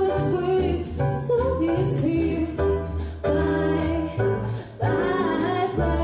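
A woman singing a song into a microphone over instrumental backing with a steady bass line, the music pausing briefly about four seconds in.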